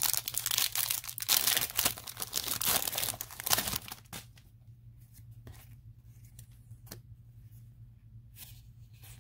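Foil wrapper of a Yu-Gi-Oh booster pack being torn open and crinkled by hand for the first three to four seconds. After that come only faint, scattered soft strokes as the cards are slid and fanned through the fingers, over a low steady hum.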